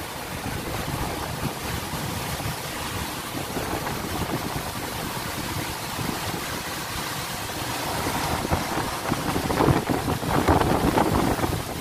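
Storm of heavy rain and strong wind, a steady rushing noise that grows louder and surges about eight seconds in.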